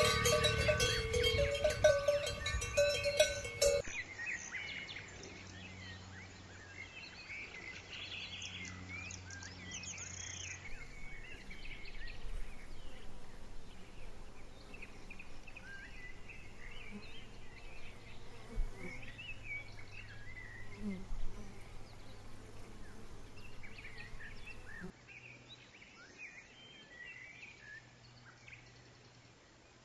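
A cowbell on a grazing cow clanging loudly with ringing metallic tones, cutting off after about four seconds. After that, faint short high chirps over a low steady hum.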